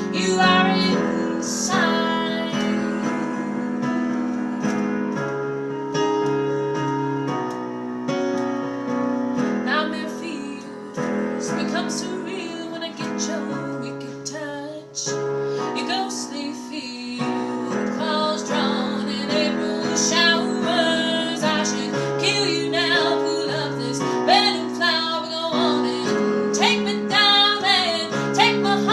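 A woman singing a jazz song over piano accompaniment.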